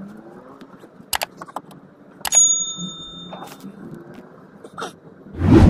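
Subscribe-button sound effect: a mouse click, then a second click with a bright bell ding that rings for about a second, over a low steady background hum. A loud burst of noise comes near the end.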